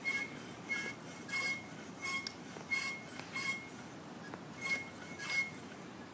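Hand air pump worked in steady strokes, each stroke a short hiss with a high squeaky note, about eight strokes with a brief pause about four seconds in. It is inflating a 4-inch inflatable test plug in a PVC sewer cleanout toward about 40 pounds of pressure.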